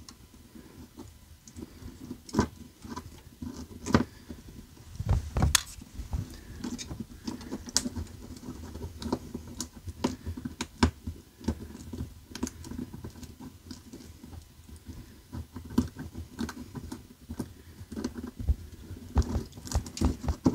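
Small clicks, ticks and rustles of fingers twisting a wire nut off ceiling wires to free an RV light fixture, over a faint steady hum.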